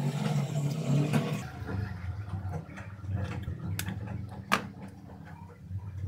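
A few sharp clicks and light rustles from a small DC motor and a cardboard box being handled, over a steady low hum that drops in pitch about a second and a half in.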